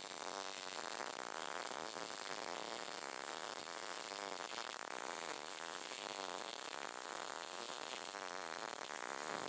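Short-circuit MIG welding arc from an HTP welder set to about 200 inches per minute wire feed and 17 volts, laying a stacked-dimes fillet weld on 1/8-inch plate. It gives a steady crackle and buzz.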